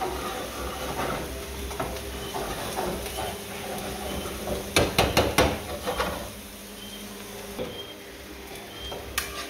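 Metal spoon stirring and scraping in a nonstick frying pan, knocking against the pan, with a cluster of sharp knocks about five seconds in. Under it, onion and garlic sizzle lightly in coconut oil as they sweat.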